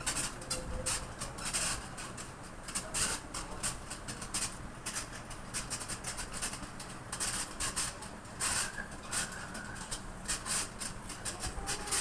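National F-150YM 60-inch industrial ceiling fan running with damaged ball bearings, giving a rapid, irregular clicking rattle with a few brief squeaks in the second half; the worn upper and lower bearings are the cause.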